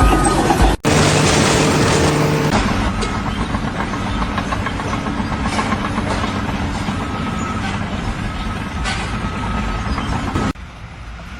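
Steady, loud engine or heavy-machinery noise. It breaks off abruptly about a second in, resumes, and drops to a quieter level near the end.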